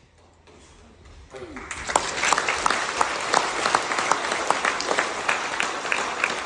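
An audience of schoolchildren and adults applauding, the clapping breaking out about a second and a half in and quickly filling out into steady applause.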